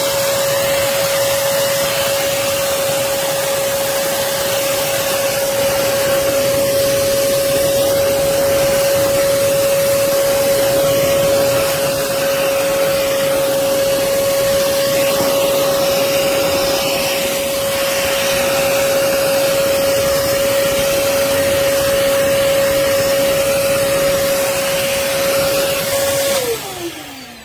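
Hoover Commercial PortaPower (CH30000) canister vacuum running steadily, a constant motor whine over rushing air. Near the end it is switched off and the whine falls in pitch as the motor winds down.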